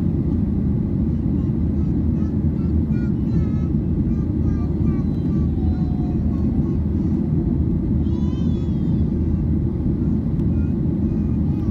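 Steady low cabin noise inside a Boeing 737-800 in flight, its two CFM56-7 turbofan engines and the airflow making an even rumble. Faint passenger voices are heard under it.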